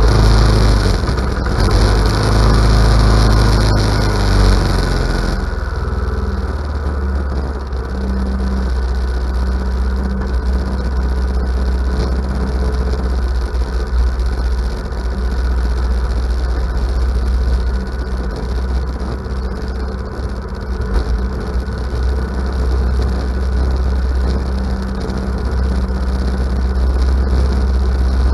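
Ariens riding mower's engine running, heard close up from the camera on its hood; about five seconds in its sound drops and it settles into steady running.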